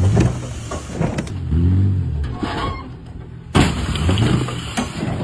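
SUV rolling over on bare rock: thuds and scrapes of the body striking the rock, the loudest crash about three and a half seconds in as it lands on its roof. Between the hits its engine rises and falls in pitch.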